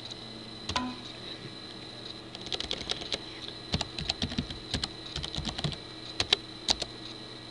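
Computer keyboard being typed on: a lone key click about a second in, then quick runs of key clicks from about two and a half seconds on.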